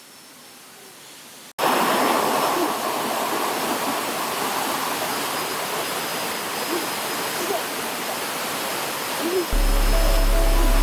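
Loud, steady rushing of a river or waterfall, cutting in abruptly about one and a half seconds in after a quieter stretch. Music starts near the end.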